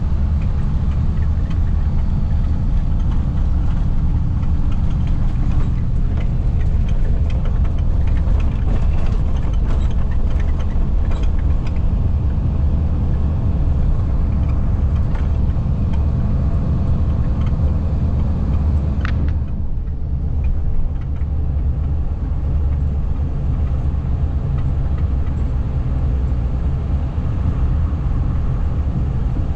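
A vehicle's engine and running noise with a heavy, steady low rumble. About two-thirds of the way through, the higher hiss briefly drops away.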